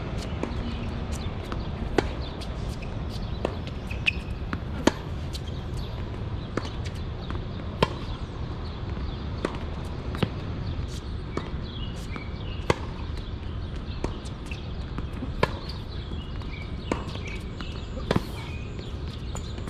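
Tennis balls being struck by racquets and bouncing on the court: sharp pops at an irregular pace, roughly one every second, over a steady low rumble.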